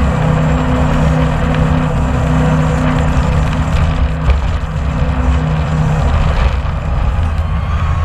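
Jet boat's engine running at speed, a steady drone that drops away about six seconds in, under a heavy rush of wind and water on the microphone.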